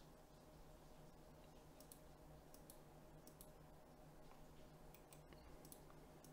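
Near silence: faint room tone with a low steady hum and a scattering of faint short clicks.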